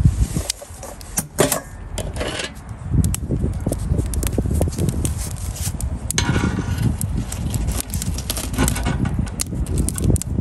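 A metal fork clinking and scraping against a perforated steel steamer basket and the chiminea's grate as it prods glowing charcoal, with many sharp clicks and a low rumble underneath.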